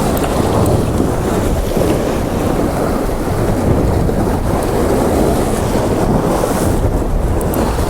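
Wind rumbling on the microphone over the steady wash of heavy sea swell against a rocky shore.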